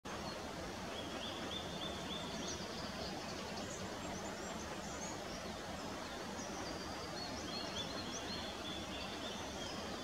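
Small birds singing faintly over a steady outdoor hiss. A phrase of short repeated notes comes about a second in and again near the end, with scattered higher notes between.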